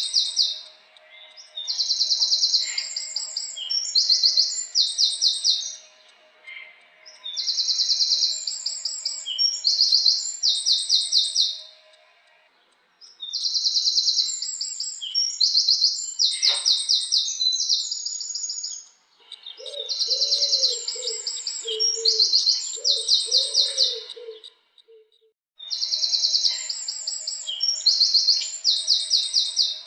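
Wren singing: repeated phrases of fast, high trills, each lasting about two to three seconds, with short pauses between. About two-thirds of the way through, a lower series of short hooting notes sounds under the song for a few seconds.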